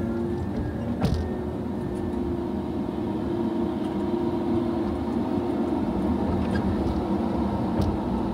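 Tigercat feller buncher's diesel engine and hydraulics running steadily under work, a constant machine drone with a single sharp knock about a second in.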